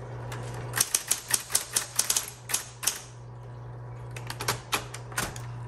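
Smith Corona Coronet Automatic 12 electric typewriter being typed on: a quick run of type-bar strikes, a pause of about a second, then a few more strikes, over the steady low hum of its running motor.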